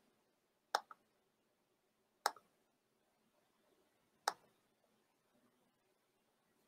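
Near silence broken by three short, sharp clicks, spaced about one and a half to two seconds apart.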